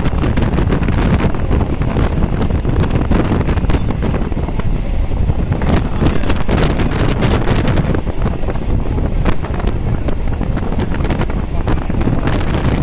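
Kolkata suburban electric local train running, heard on board: a steady loud rumble with wind buffeting the microphone and irregular clicks and knocks from the wheels and carriage.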